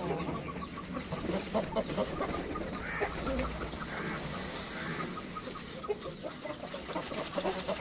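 Chickens clucking, with many short calls throughout. Partway through comes a hissing rattle of cracked maize pouring from a plastic bag onto millet in a steel bowl.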